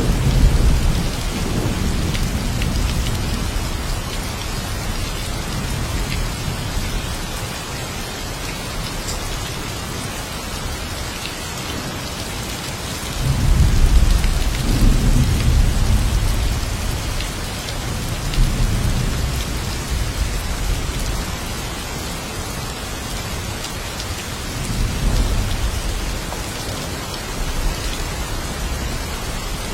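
Steady rain with several low rolls of thunder. A rumble comes at the start, the loudest and longest comes about halfway through, and smaller ones follow later.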